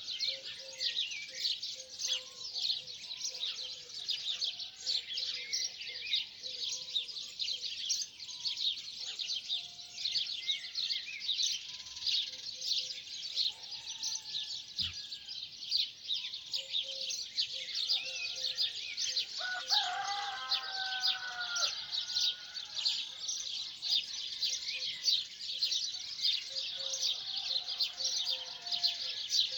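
A dense dawn chorus of many small birds chirping continuously, with a rooster crowing once about two-thirds of the way through.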